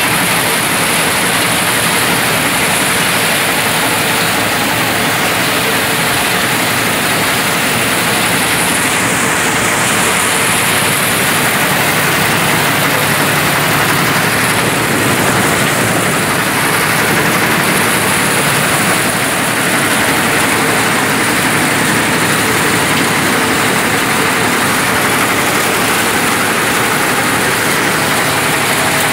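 John Deere 5038 D tractor's diesel engine running loud and steady, close by.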